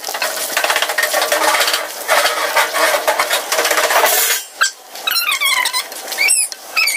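Dough pieces sizzling as they deep-fry in hot oil in a wok, with a spatula stirring and scraping through them. The sizzling drops away about four seconds in, and a few short high squeaks follow near the end.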